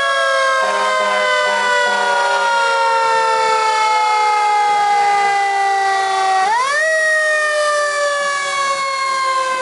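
Fire engine siren wailing: a tone with several overtones glides slowly down, winds up quickly about six and a half seconds in, then begins to fall slowly again.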